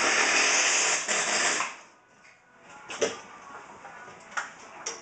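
A steady hiss that cuts off about two seconds in, followed by a few light clicks and knocks.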